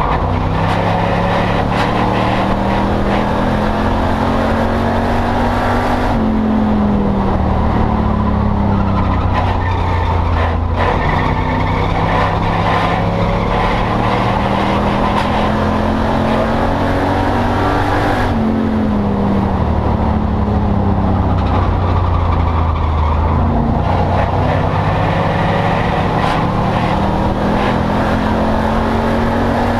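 Enduro race car's engine at full throttle, heard from inside the cabin. It is loud, and its pitch climbs slowly then drops sharply three times, about twelve seconds apart.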